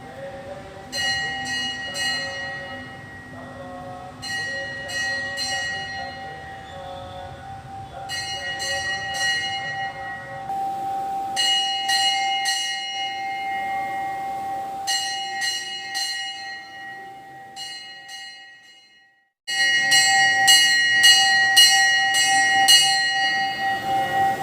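Hindu temple bells rung by hand in bursts of rapid clapper strikes, the ringing tone carrying on between bursts. The ringing fades and breaks off briefly near the end, then comes back louder.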